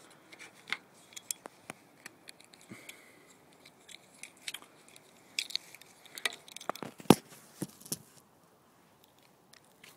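Irregular small metal clicks and clinks of a knife's blade and handles being worked by hand around a stiff pivot, the loudest click about seven seconds in.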